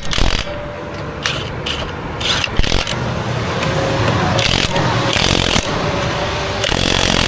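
Highway traffic going by, its rumble swelling toward the end, with several short scraping and rubbing sounds over it.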